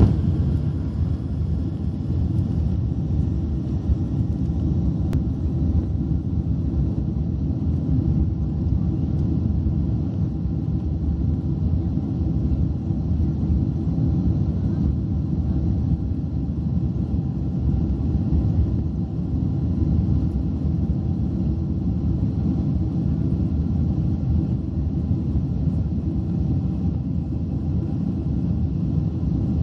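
Boeing 767 on its take-off run, heard from inside the passenger cabin: a loud, steady low rumble of the engines at take-off power and the wheels on the runway.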